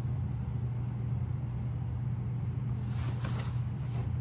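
A steady low hum, with a short rustle of a cardboard box being handled about three seconds in.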